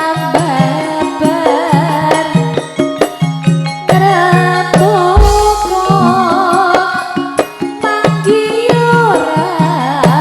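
Live campursari music: a wavering vocal melody over busy hand-drum and metallic percussion strokes, with a deep boom about five seconds in.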